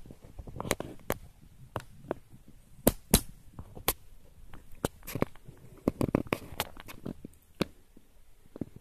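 Irregular sharp clicks and knocks from hands handling a Drozd MP-661K airgun, fingers on its receiver and controls.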